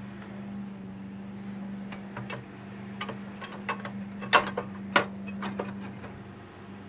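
Scattered knocks and clicks of a lawn-tractor battery being worked into its cramped compartment, with two sharper knocks about four and a half and five seconds in, over a steady low hum.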